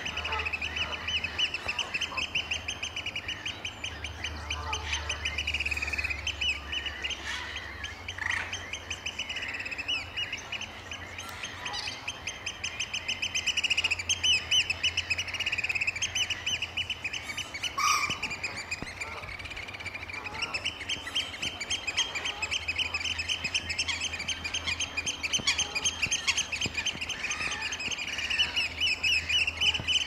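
Eurasian oystercatchers in a piping display: a long, fast trill of shrill piping notes that carries on with only brief lulls.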